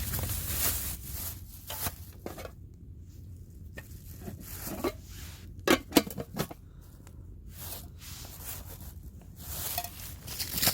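Rustling and scraping handling noises with scattered clicks and a few sharp snaps about halfway through.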